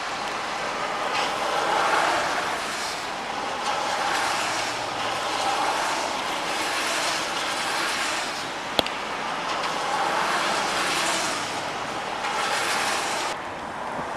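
Cars and trucks passing on a rain-soaked road, tyres hissing through standing water, the hiss swelling and fading as each vehicle goes by. There is one sharp click about nine seconds in. Near the end the hiss drops to a quieter, steady wash.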